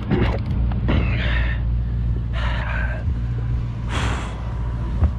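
A boat engine runs with a steady low drone, while an angler fighting a tuna takes a few short, heavy breaths.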